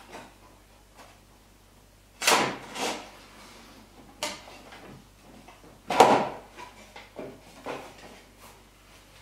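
Gray plates of a scale-model diorama kit being slid into place and handled, with a series of scraping knocks, about half a dozen, the loudest about six seconds in.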